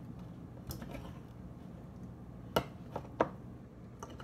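A few sharp light clicks of a utensil against a slime-mixing bowl, three or four in all, over a steady low hum.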